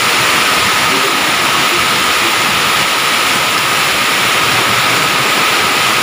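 Torrential rain and hail pouring down, a loud, steady roar with no letup.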